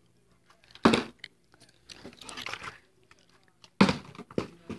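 Plastic water bottle flipped onto a wooden table, landing with a sudden thump twice: about a second in and again near the end, with softer plastic handling noise between.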